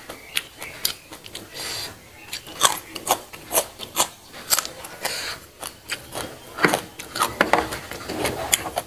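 A person chewing raw young green beans close to a clip-on microphone: a run of crisp, irregular crunches, a few each second.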